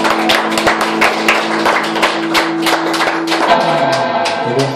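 Audience clapping while the last guitar chord rings on. The chord dies away about three and a half seconds in.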